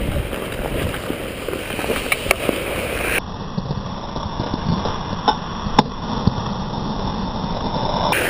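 Ice hockey skates scraping and gliding on the ice, heard close up from a helmet-mounted camera, with a few sharp clicks of stick on puck.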